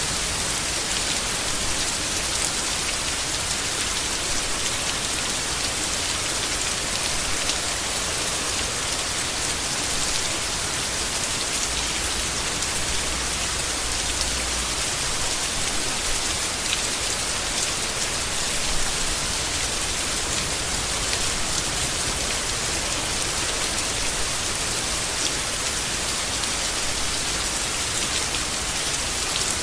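Steady rain falling on leaves, an even hiss with many small drop ticks.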